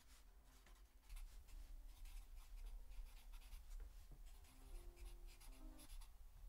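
Faint scratching of a pen on paper as someone writes in a notebook: many quick, short strokes starting about a second in.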